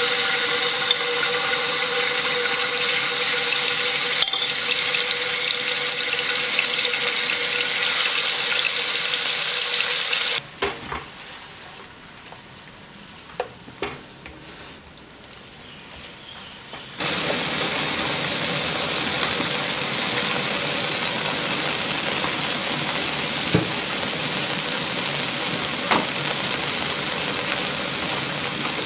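Beef strips sizzling and frying in hot oil in a nonstick pan, a loud steady hiss with a faint steady tone under it in the first part. About ten seconds in the sizzle drops away to a quiet stretch with a few clicks of the spatula against the pan, then loud sizzling starts again about seventeen seconds in.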